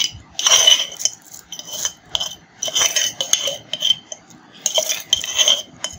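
Thin plastic bag crinkling in irregular bursts as sour yogurt is squeezed out of it into a plastic bowl of raw mutton.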